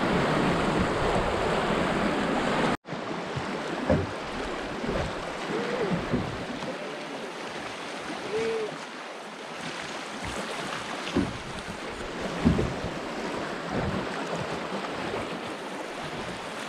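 Green River water rushing, with wind buffeting the microphone. After a sudden cut about three seconds in, the water goes on as a quieter wash with a few brief knocks.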